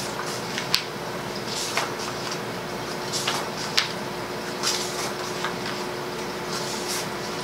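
Thin sheets of coloring-page paper being leafed through and shuffled by hand: soft rustling with a few sharp paper snaps or taps, three of them standing out in the first four seconds.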